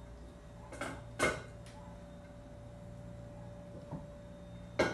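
A few short, sharp household knocks, two close together about a second in and more near the end, over a steady faint hum.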